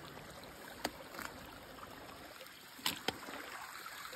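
Small mountain stream running and splashing over rocks, with a few sharp clicks and knocks against the stones.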